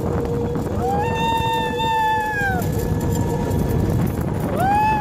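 People screaming in two long, high, held screams, the first starting about a second in and the second starting near the end, over a steady low rumble of wind and a moving vehicle.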